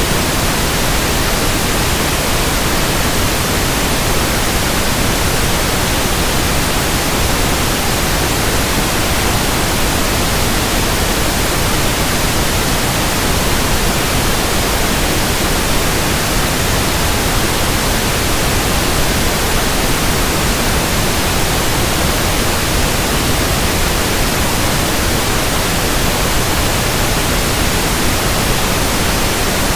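Pink noise test signal: a steady, unbroken hiss spread evenly across all pitches, the kind played for measuring the frequency response of speakers or a room.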